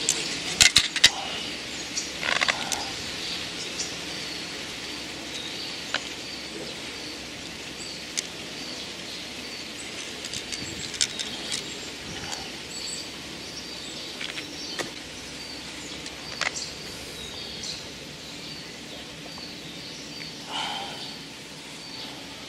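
Open riverside ambience: a steady hiss with small birds chirping over and over in short high notes. A few sharp clicks and knocks from handling the fishing tackle, the loudest about a second in.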